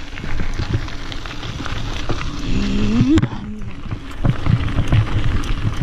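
Mountain bike ridden along a gravel path: tyres rumbling over the gravel, with frequent knocks and rattles from the bumps and wind on the microphone.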